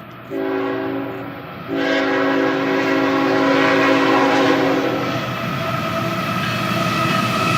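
A Nathan K5HLA five-chime air horn on a GE ET44AH locomotive sounds two toots, a short one and then a longer one of about three seconds. After them comes the steady noise of the passing train's wheels on the rails.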